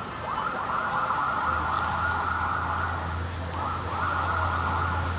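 Emergency vehicle siren sounding in two long warbling stretches, broken briefly about three seconds in, over a steady low vehicle hum.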